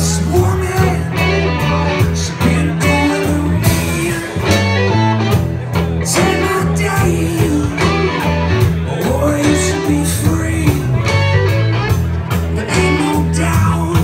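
Live rock band playing a song: electric guitars, bass and drums with a steady beat, and a singer at the microphone.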